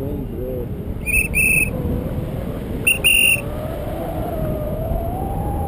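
A whistle blown twice, about a second and a half apart, each time a short pip followed by a longer shrill note. Wind rushes steadily over the microphone in flight.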